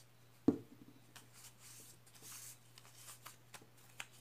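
Soft rustling and rubbing of a damp paper spiral handled in the palm, with a single knock about half a second in.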